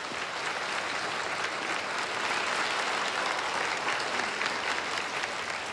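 An audience applauding, a dense steady clatter of many hands clapping that starts to fade near the end.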